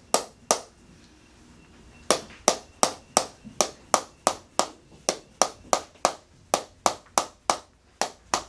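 Hand-held chiropractic adjusting instrument firing repeatedly against the patient's hip and low back, a sharp tap about three times a second, with a short pause about half a second in.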